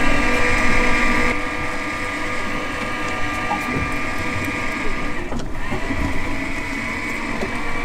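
Electric fishing reel winding in line with a steady motor-and-gear whine, easing off slightly about a second in.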